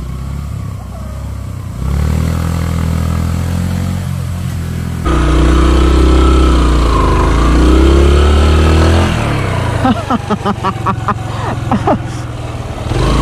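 A small Yamaha motorcycle engine idling and being revved as the bike is manoeuvred on a slippery mud slope. It grows louder about five seconds in, rising and falling with the throttle, and ends in a run of short choppy bursts.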